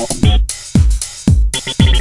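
Electronic dance music with a steady kick drum about two beats a second and synth notes between the beats.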